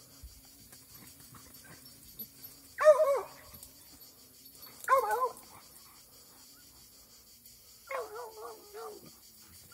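Plott hound baying in thick brush, held at a boar standing at bay. It gives a short bark-howl about three seconds in, another about two seconds later, and a longer wavering bay near the end.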